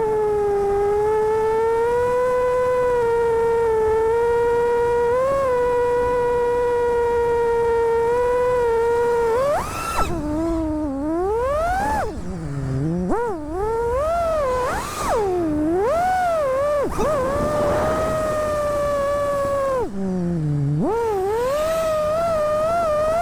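FPV quadcopter's brushless motors and propellers whining. The pitch holds steady for about the first nine seconds, then swoops up and down again and again as the throttle is punched and chopped through manoeuvres.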